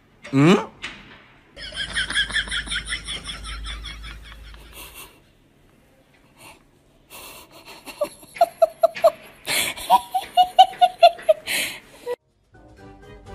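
Bursts of dubbed-in laughter in two stretches, with a short sound rising quickly in pitch at the very start.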